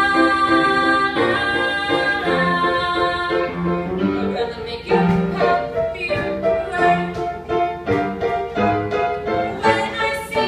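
A woman singing solo to grand piano accompaniment. She holds long notes through the first few seconds; after that, repeated struck piano notes come through plainly under her melody.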